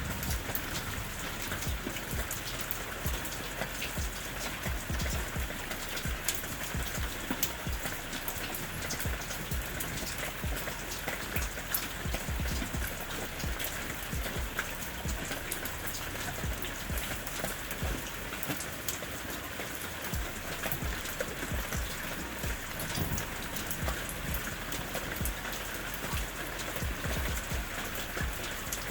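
Steady rain falling: an even hiss dense with many sharp, irregular drop ticks.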